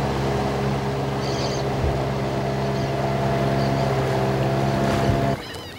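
Motorboat engine running steadily, a low drone, with a few faint bird chirps. The drone cuts off suddenly near the end.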